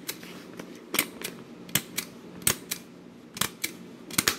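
Swingline stapler stapling through a stack of newspaper sheets: a series of sharp clicks, some in quick pairs, about one stroke a second.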